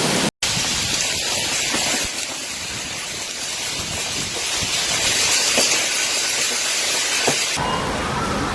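Steady, dense hiss of a heavy storm downpour, rain and hail pelting surfaces. Near the end a siren wail rises and falls under the noise.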